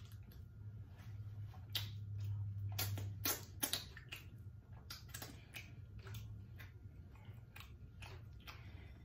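Close-up chewing and mouth smacking while eating: a string of irregular sharp wet clicks, thickest about three seconds in, over a low steady hum.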